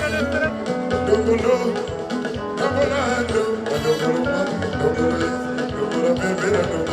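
Congolese rumba band music from a live stage performance, with a wavering melody over a repeating bass line.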